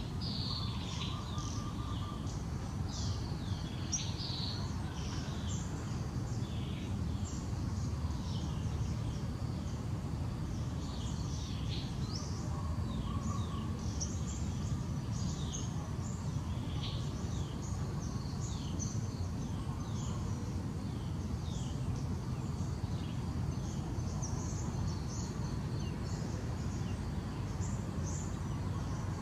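Small birds chirping: many short, quick, falling chirps, over steady low background noise.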